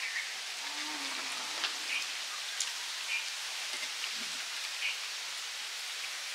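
Eating by hand from steel plates: fingers working rice and curry, with a few light clicks against the metal, over a steady outdoor hiss. Short high chirps recur about once a second.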